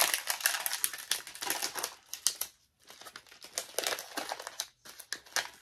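Crinkly blind-bag packaging being handled and opened by hand: a dense run of crackling crinkles that stops briefly about halfway through and again near the end.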